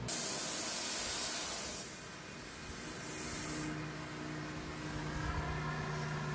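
Gas brazing torch hissing, loud at first and easing off after about two seconds, then burning on more quietly. A low steady hum sets in a little before the end.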